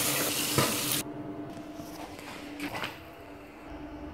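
Water running from a bathroom tap with a steady rush, cut off abruptly about a second in, followed by faint knocks and handling.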